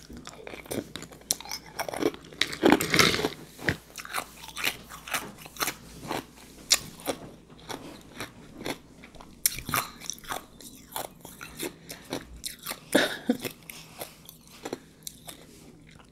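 Crushed ice being crunched and chewed close to the microphone, a dense run of sharp, irregular crunches with a few louder bites along the way.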